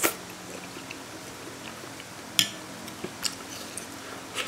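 A person eating slippery cold pea-starch jelly from a spoon: a few short slurps and mouth sounds, the sharpest just at the start and about two and a half seconds in.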